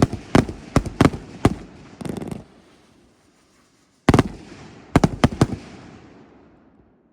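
Firework cakes going off: a quick run of sharp bangs, about three a second, then a brief lull and a final cluster of bangs that trails off into quiet.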